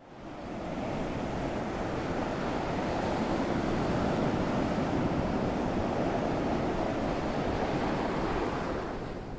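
Steady rushing wash of ocean surf, fading in at the start and out just before the end.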